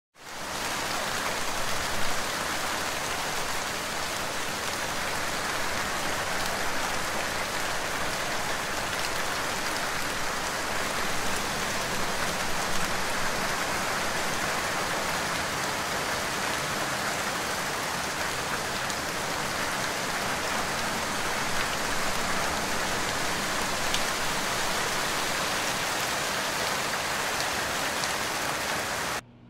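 Steady rain falling, a dense, even patter that fades in at the start and cuts off suddenly near the end.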